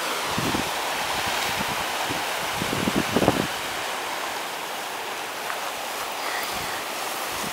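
Ocean surf washing over rocks, a steady rushing noise with a few low rumbles, the loudest about three seconds in.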